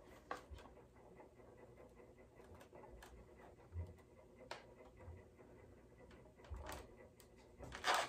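Small clicks and knocks of bar clamps being set and tightened on a vintage archtop guitar body during a cleat repair, with a louder burst of clamp handling and rattling near the end.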